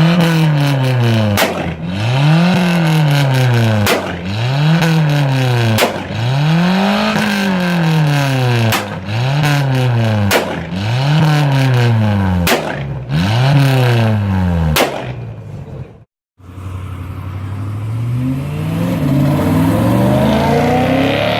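A tuned car engine with a loud aftermarket exhaust is revved hard about eight times in a row, each rev climbing and falling back. Most revs end in a sharp exhaust crack. After a brief cut, an engine climbs steadily in pitch under acceleration, with a higher whine above it.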